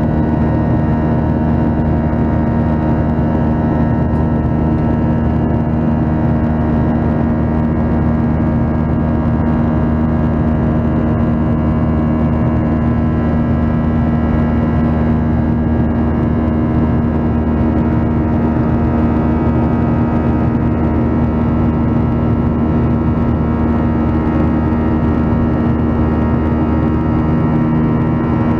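CFM56-7B turbofan engines of a Boeing 737-900ER heard from inside the cabin during the climb: a steady hum with several constant tones over a low rumble.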